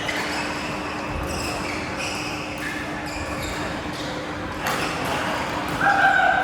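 Badminton rally on an indoor court: sharp racket strikes on the shuttlecock, one clearly about three quarters of the way in, amid short high squeaks of court shoes on the floor.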